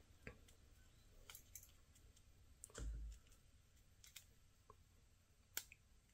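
Faint, scattered clicks of a NATO strap and its metal adapter being handled and fitted to a smartwatch, with a duller knock about three seconds in and a sharper click near the end; otherwise near silence.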